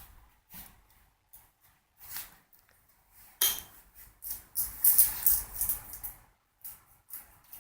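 Clicks and scraping from a mezuzah case being handled and fitted against a doorframe, with a louder scratchy, rustling stretch in the middle.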